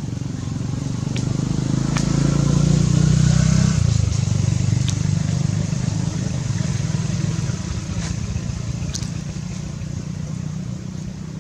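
A motor vehicle engine passing close by: a low hum that swells to its loudest about three seconds in, then fades into steady outdoor background noise. A few faint ticks are scattered through it.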